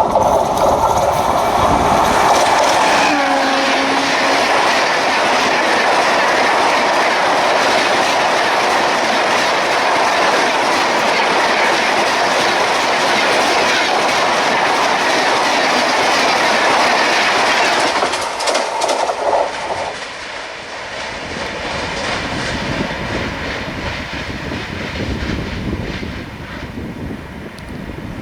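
An express train passing at high speed behind a WAP-7 electric locomotive: a horn note falls in pitch in the first few seconds as the locomotive goes by, then the LHB coaches make a loud steady rush of wheels and clickety-clack on the rails. About 18 seconds in the sound drops off as the last coach passes, and the train's rumble fades away.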